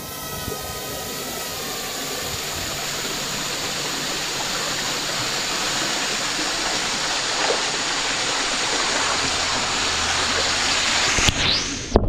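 Waterfall rushing, a dense even noise of falling water that slowly grows louder. A few wavering whining tones fade out over the first two seconds.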